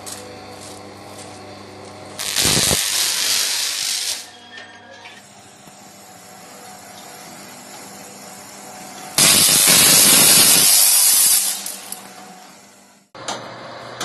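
High-voltage disconnect switch drawing an electric arc, over a steady electrical hum. There are two sudden, loud, harsh noisy bursts: the first about two seconds in lasts about two seconds, and the second, louder and longer, starts about nine seconds in and dies away.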